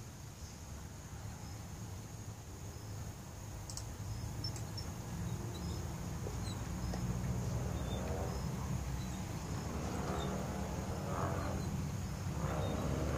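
Steady high insect chirring over a low outdoor rumble; from about eight seconds in, a person's voice comes in several times with drawn-out vocal sounds.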